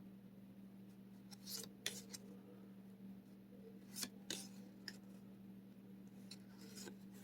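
Faint taps and sliding rustles of Pokémon trading cards being handled and stacked, a few short sounds over a steady low hum.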